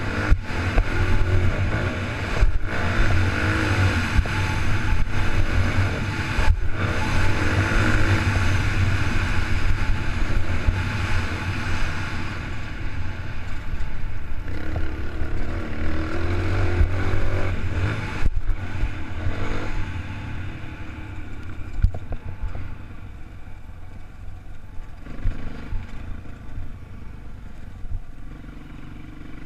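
Honda motocross bike engine running under throttle, rising and falling in pitch, with a few brief cuts. It gets quieter over the second half.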